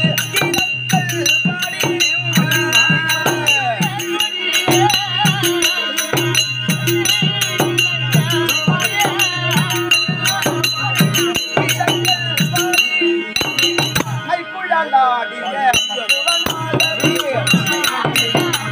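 Tamil therukoothu stage music: a steady, regular drum beat with jingling rattle-like percussion and a wavering melody over a held high drone. The drum drops out briefly about three-quarters of the way through, then comes back.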